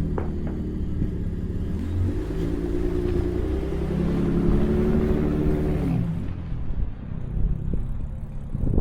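Motor vehicle engine running, its pitch rising somewhat a few seconds in; about six seconds in the sound turns duller and lower.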